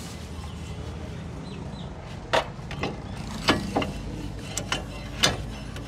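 Sharp clinks and knocks of metal brake parts being handled as a brake caliper is fitted back over the disc on a car's front hub. There are several, starting a little past two seconds in, over a steady low hum.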